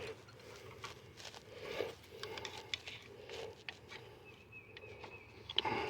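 Faint scattered clicks and scrapes of tools and metal parts being handled, with a louder clatter near the end.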